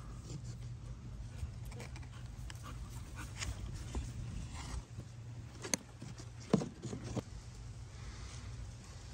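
A person panting after exercise, over a low steady rumble, with crackling and a few sharp snaps as cecropia fruit spikes are handled and pulled from the tree, the loudest snap about six and a half seconds in.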